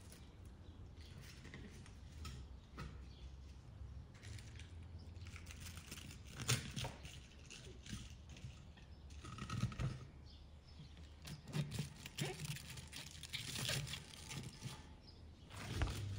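Crisp cabbage wedges rustling and crackling as they are handled and packed into a large glass pickling jar, with short clicks now and then, over a faint low hum.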